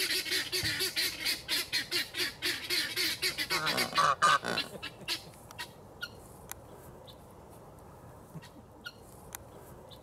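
Cape Barren goose calling in a rapid run of honks, about five a second, louder just before four seconds in and stopping about five seconds in. A few faint clicks follow.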